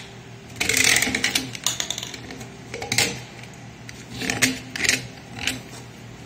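Utility knife blade scraping the freshly sawn end of a PVC pipe bend to deburr the cut edge. There is a longer scrape about half a second in, then several short ones.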